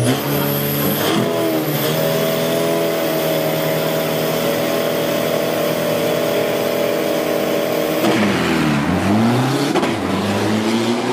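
Isuzu D-Max 3.0-litre turbo-diesel drag pickups on the start line, engine held at steady high revs. About eight seconds in the revs drop and then climb again as the trucks launch and accelerate away.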